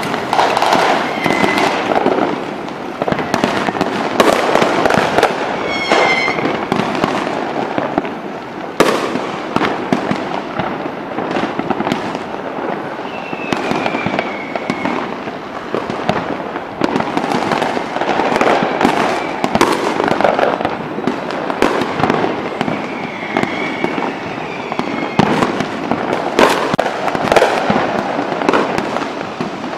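Fireworks display: a dense, continuous barrage of bangs and crackling shell bursts, with a few short whistles rising over it.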